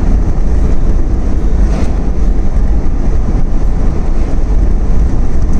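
Road and wind noise inside a moving car: a loud, steady, deep rumble with no pauses.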